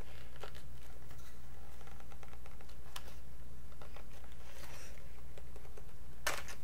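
A few separate light clicks and a soft rustle from handling a cardboard box of Crayola crayons, the loudest click near the end, over a steady low hum.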